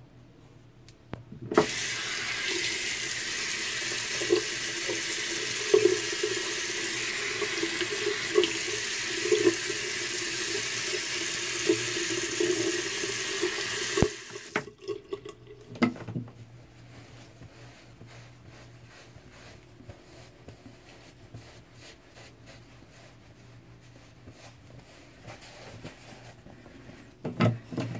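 Water running from a tap into a sink, with splashing, for about twelve seconds starting a second and a half in, then shut off suddenly. A few small splashes and knocks follow.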